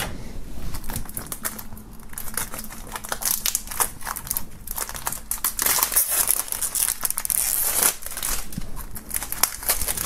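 Clear plastic shrink-wrap being peeled and pulled off a CD jewel case, crinkling and crackling irregularly throughout, loudest about three-quarters of the way through.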